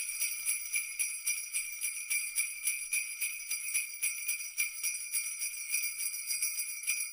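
Jingle bells (sleigh bells) shaken in a steady, even rhythm, several shakes a second, with a bright high ringing.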